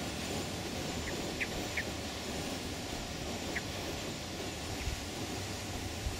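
Steady outdoor background noise with a handful of short, high bird chirps, most of them between one and two seconds in and one more about three and a half seconds in.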